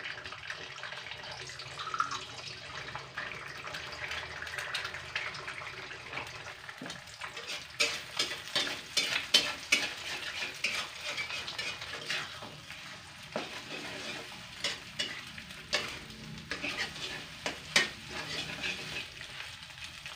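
Eggs frying in hot oil in a wok, a steady sizzle. From about eight seconds in, a spatula repeatedly scrapes and knocks against the wok as the eggs are broken up and scrambled.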